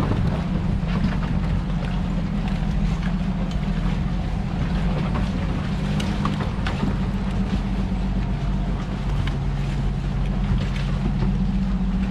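Toyota FJ40 engine running steadily at low revs while crawling a rough off-road trail, with scattered knocks and rattles.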